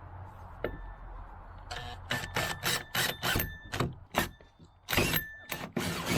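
Power drill with a 2 1/4-inch hole saw cutting into the plastic kayak hull, run in a dozen or so short trigger bursts starting about two seconds in.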